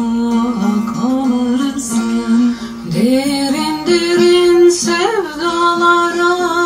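Music: a sung melody of long held notes with guitar accompaniment.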